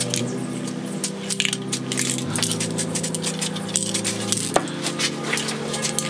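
Metal spray paint cans clinking against one another as they are picked out of a crowded rack, over background music of slow sustained chords that change about every two seconds.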